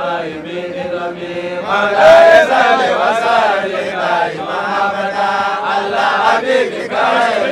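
A group of men chanting together, many voices overlapping, loudest about two seconds in.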